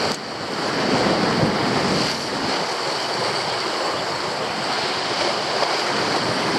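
Sea surf breaking and washing over shoreline rocks. A stronger surge swells about a second in.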